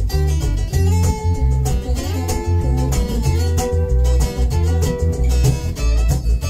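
Instrumental break of a Russian pop-rock song: a guitar playing a melody over bass and a steady drum beat.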